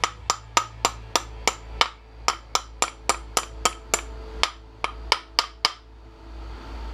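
Hammer tapping steel parts out of an aluminum brake caliper: about twenty sharp metal strikes at a steady pace of roughly three a second, stopping near the end.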